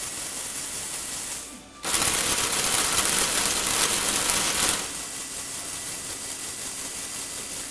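Lego Technic gear train whirring and rattling as a Lego electric motor drives it. It cuts out briefly about a second and a half in, then runs louder and faster for about three seconds before dropping back to a quieter, steadier whir. These are the speed steps of the eight-speed gearbox shifting.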